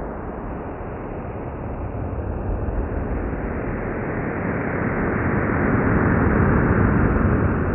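NASA's sonification of the Event Horizon Telescope image of the Sagittarius A* black hole: a low, noise-like drone without a clear pitch. It swells louder over the middle seconds, its volume following the brightness of the ring as the radar-like sweep moves clockwise around it.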